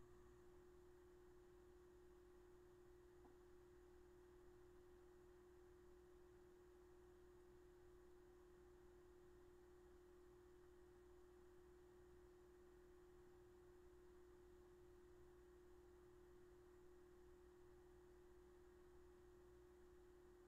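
Near silence with a faint steady hum at a single pitch.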